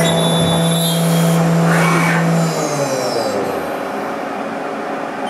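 Haas VF-2 CNC mill drilling the body, its spindle and drive running with a steady hum and whine over a hiss, then winding down and falling off about three seconds in as the drill finishes.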